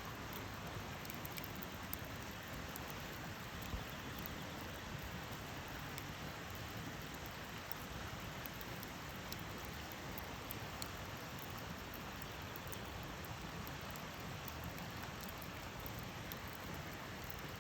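Campfire burning: a steady crackling hiss with scattered sharp pops from the burning wood.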